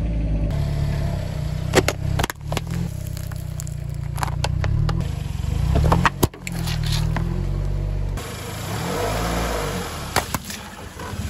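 Car tyre rolling slowly over objects and crushing them one after another, with sharp cracks about two seconds in and the loudest crack about six seconds in as a drink carton gives way under the tyre. More cracks come near the end as the tyre reaches a pair of water balloons. Background music with a steady bass line runs underneath, along with the car's engine.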